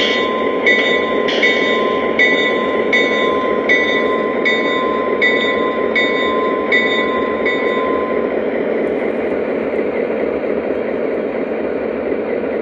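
Lionel Legacy NW2 diesel switcher's onboard sound system: diesel engine rumble under a locomotive bell ringing about ten times, roughly three strokes every two seconds. The bell stops about eight seconds in and the engine sound carries on.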